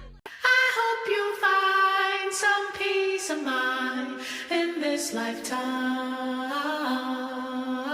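Unaccompanied singing with no instruments: one voice holding long, wordless notes that step up and down in pitch.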